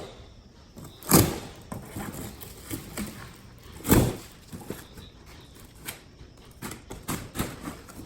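A large cardboard shipping box being opened and handled: two loud sharp knocks about a second in and at about four seconds, with lighter taps and rustling of cardboard between them and near the end.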